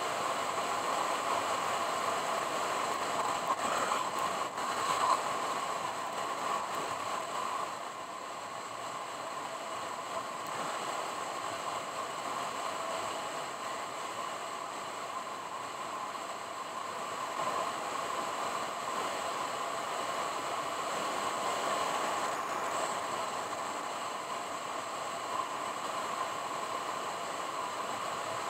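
Steady road noise of a car being driven, with a few light knocks about four to five seconds in.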